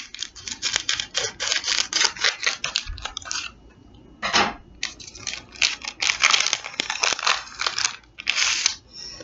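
Scissors cutting open a plastic-wrapped package, then the plastic wrapper crinkling and rustling in rapid runs as it is pulled open and handled, with a short pause in the middle and a few louder single crackles.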